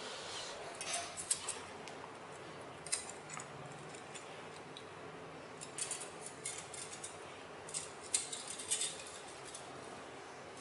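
Faint crinkling and light clicks of thin aluminium beer-can strips being bent and handled by hand, coming in small scattered clusters.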